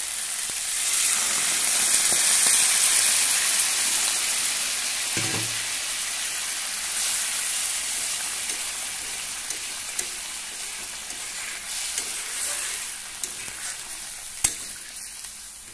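Water poured into hot fried masala in a kadai, hissing and sizzling hard: it swells about a second in and slowly dies down as the liquid heats into gravy. A few light clicks near the end.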